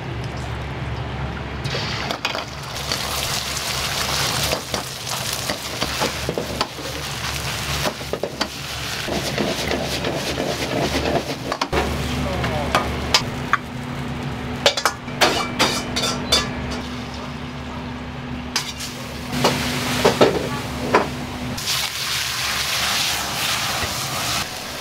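Fried rice sizzling in a hot wok while a metal ladle repeatedly clacks and scrapes against the wok as the rice is stirred and tossed. A steady low hum comes in about halfway through and stops near the end.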